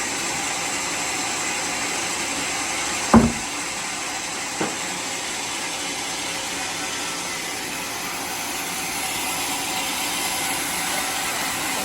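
Sawmill machinery running with a steady hiss, with a sharp knock about three seconds in and a lighter one a second and a half later.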